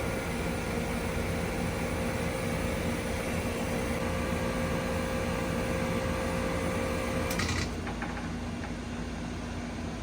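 1999 Trane XE1000 heat pump outdoor unit running steadily in cool mode. About seven seconds in, a sharp click comes and the unit's pitched hum cuts off at once, leaving a quieter steady running sound: the start of the unit's shutdown.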